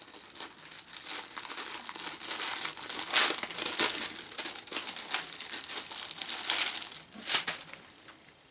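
Packaging crinkling as a wrapped item is unwrapped by hand: a dense crackle with louder surges about three seconds in and again near the end, dying away in the last second.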